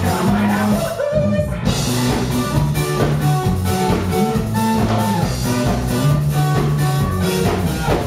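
Live rock band playing electric guitar, bass guitar and drum kit, loud and steady, with a short break in the drums and cymbals about a second in.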